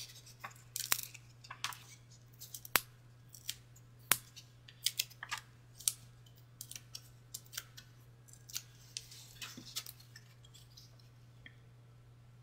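Scattered small clicks, taps and rustles of cardstock and paper being handled as foam adhesive dimensionals are peeled from their sheet and a sentiment strip is pressed onto a card. The clicks come at an irregular pace and thin out near the end.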